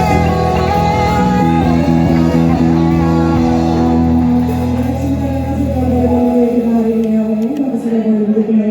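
Live worship band playing the closing bars of a song, with singing and guitar. The low bass notes drop out about six seconds in while a voice carries on with a wavering sung line.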